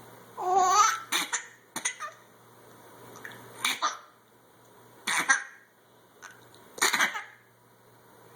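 A young child's voice making noises: a short high squeal near the start, then several short cough-like bursts spaced a second or more apart.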